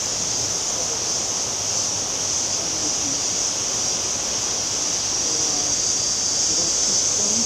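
Steady rushing of a river running high and brown after heavy rain, with an even high-pitched hiss over it.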